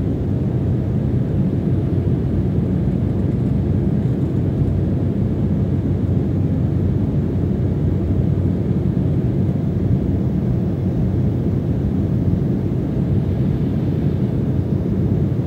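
Steady low cabin rumble of a jet airliner in flight, heard from inside the passenger cabin by a window seat.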